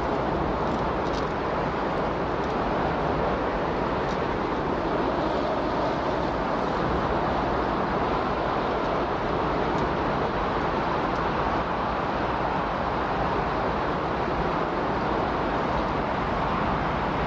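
Steady, even rushing noise, a masking noise bed with no tones, beat or rise and fall, and a few faint ticks.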